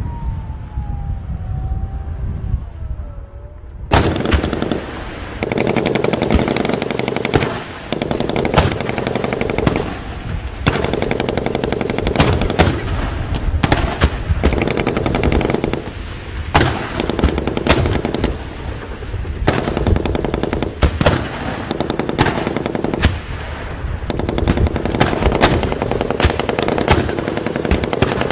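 Machine gun firing long, rapid bursts with short pauses between them, starting about four seconds in, over a steady vehicle engine rumble; before the firing, the engine runs with a falling whine.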